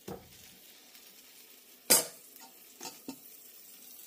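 A metal ladle knocks against a stainless steel bowl of pancake batter, one sharp clink about two seconds in and two softer knocks near the end, over a faint steady sizzle of French toast frying in a pan.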